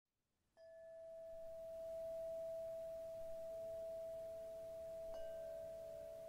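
Struck bell-like tones ringing on: one clear, steady note starts suddenly about half a second in, a lower note joins near the middle, and a second strike about five seconds in adds another ringing note.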